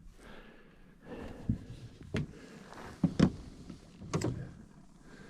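A few sharp knocks and clunks about a second apart, with faint rustling between them, as things are handled against the boat.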